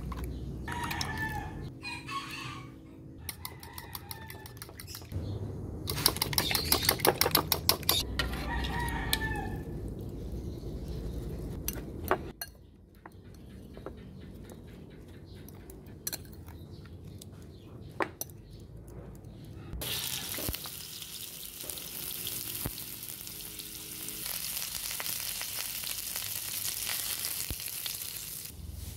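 A fork scrapes and clicks against a bowl, fast and loud for a few seconds, then more slowly as shredded cabbage and carrot are stirred. From about two-thirds of the way in, oil sizzles steadily as sausages fry in a rectangular pan.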